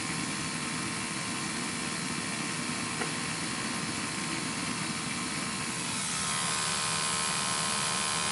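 Steady mechanical whir and rush of a firing gas boiler, with a combustion analyzer's sampling pump running, while the burner's gas is adjusted at the gas valve. A light click about three seconds in; the sound turns brighter and a little louder about six seconds in.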